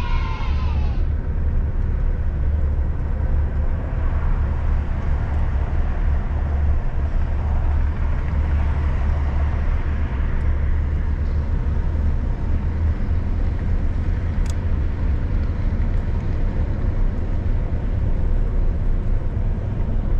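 A car driving, with a steady low rumble of road and engine noise throughout.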